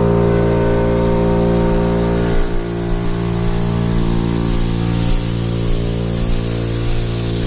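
Makita MAC5200 electric air compressor running steadily, its motor and pump humming, while compressed air blows through the sprinkler zone and hisses out of the heads as a fine mist. The hiss grows stronger near the end. This is the blowout that clears water from the lines for winter.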